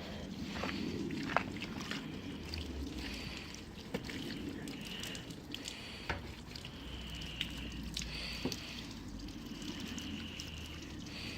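Water trickling and dripping over a car headlight being rinsed, with scattered small clicks and splashes.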